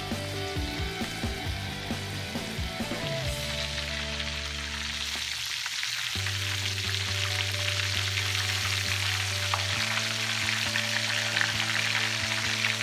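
Battered chicken pieces deep-frying in hot oil in a skillet, sizzling and bubbling steadily. Background music with held chords plays under it, with a beat in the first few seconds.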